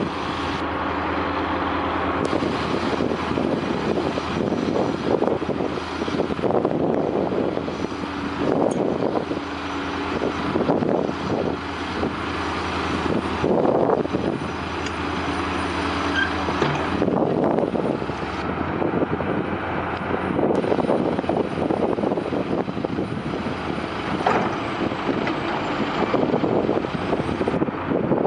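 Heavy diesel engines of a Caterpillar 345C excavator and a John Deere crawler dozer running hard under load during a ditch recovery: a steady low drone with knocks and scrapes now and then, its note shifting about two-thirds of the way through.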